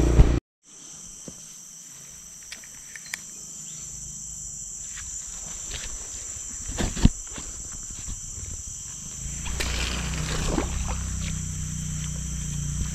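A steady, high-pitched chorus of insects, with a few clicks and knocks as a fishing rod and reel are handled. There is a rustle of handling about ten seconds in.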